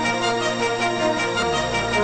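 Electronic soundtrack music with held synth chords and a bass line that glides downward about one and a half seconds in.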